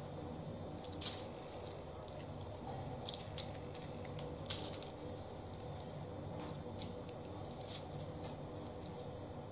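Faint handling sounds of a spoon spreading sour cream over a fish on aluminium foil: a few short taps, scrapes and foil rustles, spaced a couple of seconds apart.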